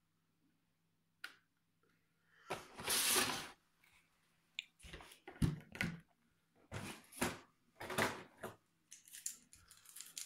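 Hands handling hard plastic drone parts and a moulded plastic packaging tray: a click about a second in, then a longer scrape followed by a string of clatters and rustles.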